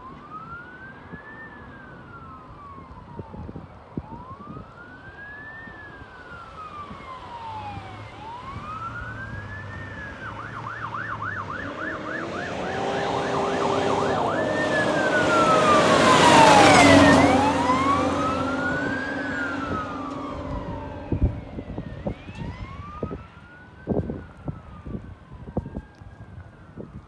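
Responding fire-district apparatus's electronic siren wailing in slow rises and falls, switching briefly to a fast yelp about ten seconds in. It grows louder as the vehicles approach, passes loudest at about sixteen seconds with a sharp drop in pitch, then wails on more faintly. Wind bumps on the microphone come near the end.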